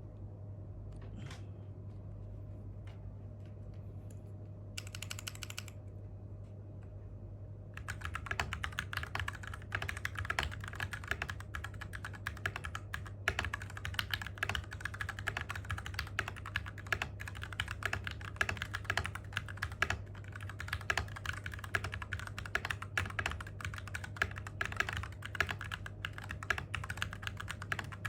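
TM680 mechanical keyboard fitted with stock, unlubricated Gateron Milky Black linear switches, typed on rapidly in a dense run of keystrokes that starts about eight seconds in. The scratch of plastic rubbing inside the unlubed switches can be heard. A short hiss comes a few seconds before the typing.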